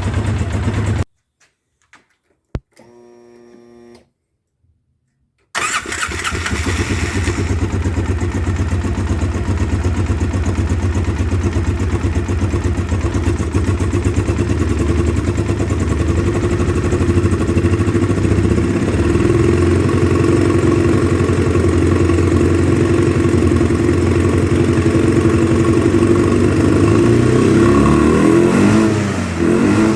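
2009 Polaris Sportsman 800 ATV engine running, cutting out for a few seconds, then cranking and catching about five and a half seconds in and running on, a little louder in the later part. It is running rough with fuel injection cleaner in the system after sitting six months; the owner fears gummed-up injectors.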